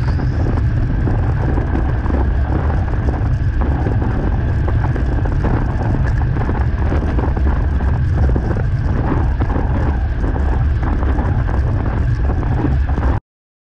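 Wind buffeting the microphone of a handlebar-mounted camera on a road bike at riding speed: a steady, loud low rumble. It cuts off suddenly near the end.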